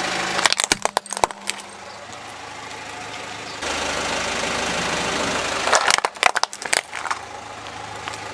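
Hard plastic toys cracking and crunching under a car tyre: two bursts of sharp snaps, one about half a second in and one about six seconds in. A car engine idles steadily underneath.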